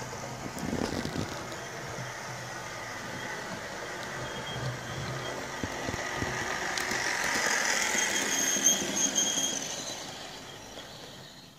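Hornby Class 43 HST model train running along the track: a steady motor whine and wheel rumble on the rails. It grows louder as the train comes close about eight to nine seconds in, with a few clicks over the rail joints, then fades away.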